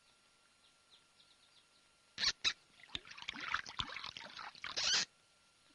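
Water pouring and splashing into a wooden bucket for about two seconds, stopping abruptly. Just before it come two sharp knocks, and faint birds chirp early on.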